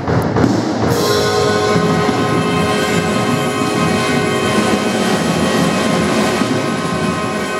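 Concert wind band of brass and woodwinds with percussion playing a loud, sustained full chord that enters suddenly after a brief pause and is held, easing slightly near the end: the closing chord of the piece.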